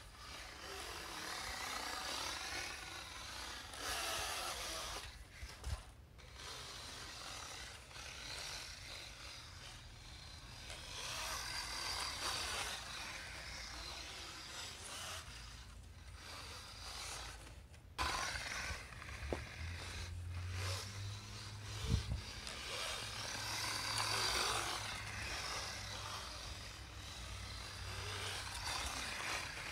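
3D-printed RC snowmobile driven by a 3380kv 2958 brushless motor on a 2S LiPo, its motor and track drive whirring in repeated surges as the throttle is opened and eased off. There are a few sharp knocks along the way.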